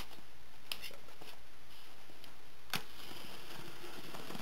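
Box cutter slitting the packing tape along the seam of a cardboard shipping box: a few light clicks and scrapes, one sharper click a little past halfway, and a scratchy sound near the end.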